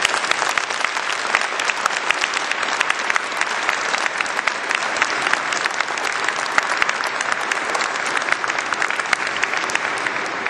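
Large audience applauding: dense, steady clapping that dies down near the end.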